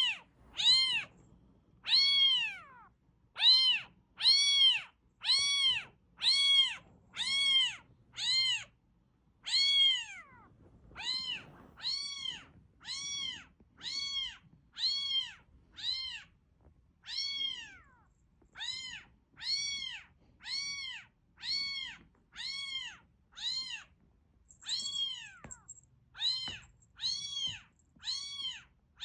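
A recorded cat meow played over and over: short, high-pitched calls that rise and fall in pitch, about one every 0.7 seconds, each one the same, with a brief pause every several seconds.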